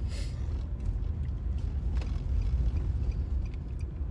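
Steady low rumble of road and engine noise inside a moving car, with a short rustle at the very start and a faint click about two seconds in.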